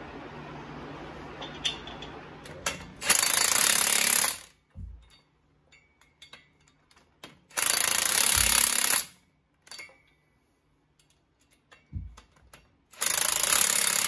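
Cordless impact wrench hammering in three bursts of a second or so each, running down and tightening the nuts that hold a dual-rear-wheel adapter onto a truck's front hub. A short low thud follows each burst.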